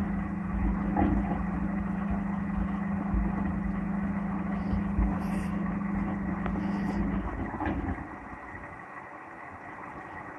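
Servis Gem M310 washing machine running in the cool-down stage of a 95° cotton wash: a steady low hum with rumbling that cuts off about seven to eight seconds in, after which the machine runs much quieter.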